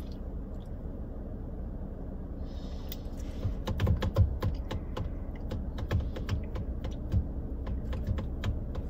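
Light, irregular clicks and taps of a small aluminium drink can being handled in a child's fingers. They start about three and a half seconds in, over the low steady rumble of a car's cabin.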